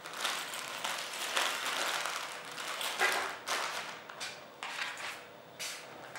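Clear plastic bag of small fittings crinkling as it is handled, then several sharp taps and clicks as it is laid on the black steel box.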